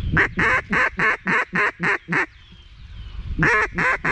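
Hand-blown duck call sounding two runs of evenly spaced quacks, about eight in the first and the second starting about three and a half seconds in, used to call ducks in to the decoys.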